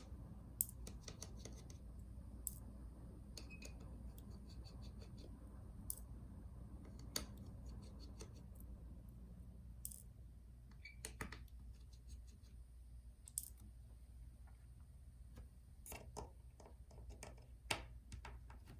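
Faint, scattered clicks and short scratching ticks of small hand tools working on a laptop's top case, some in quick little runs, over a steady low hum.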